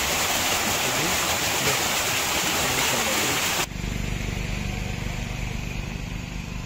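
Rushing water of a small waterfall, a dense steady hiss, which cuts off abruptly about three and a half seconds in to a quieter, steady low hum.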